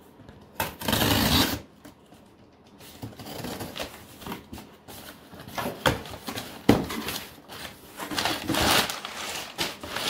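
A cardboard shipping box being opened by hand. A knife slits the packing tape with a short loud rasp about a second in, then the cardboard flaps are pulled open and cardboard and crumpled packing paper rustle and scrape, with a few sharp clicks.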